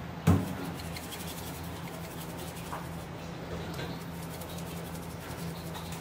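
Fish being handled on a plastic cutting board during filleting: one loud thump about a third of a second in, then a few faint small clicks of handling over a steady low hum.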